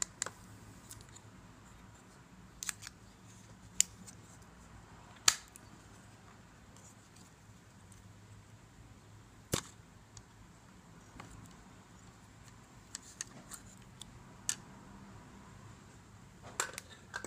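Scattered sharp plastic clicks and snaps as an action camera's clear waterproof housing is handled, its latch undone, its back door opened and the camera taken out. The loudest snap comes about five seconds in; the rest is near quiet between the clicks.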